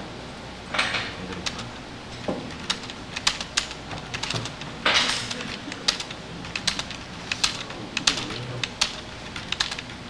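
Computer mouse clicks, over a dozen sharp clicks at irregular intervals. Two short, louder hisses come about a second in and about five seconds in.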